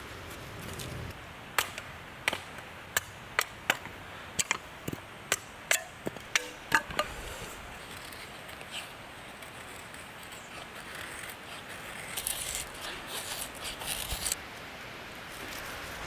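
A knife splitting thin kindling sticks on a wooden chopping block: about fifteen sharp wooden knocks over five or so seconds. Near the end comes a few seconds of crackling and rustling as straw and wood shavings are lit.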